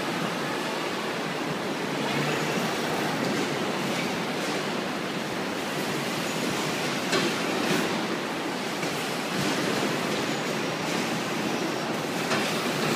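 Steady mechanical din of a carton palletizing line running, its roller conveyors and palletizer working, with a few light knocks along the way.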